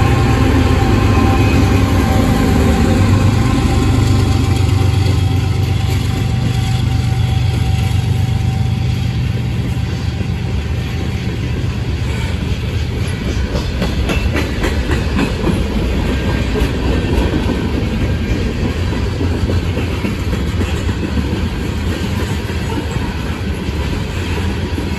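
Union Pacific diesel locomotive passing under power, its deep engine drone and whine fading over the first few seconds. Then a string of covered hopper cars rolls by with a steady wheel-on-rail rumble and scattered clicks over the rail joints.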